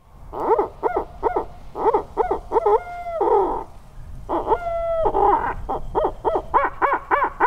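Harrison Hooten Stick, a tube-style owl hooter call, blown to imitate owl hoots: a string of short hoots, two long drawn-out calls that drop in pitch at the end, then a fast run of short hoots near the end. It is a locator call, used to make gobblers answer.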